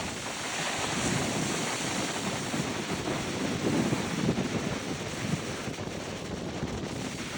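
Rough sea surging and breaking on the beach in a strong onshore gale, with wind buffeting the microphone in uneven gusts.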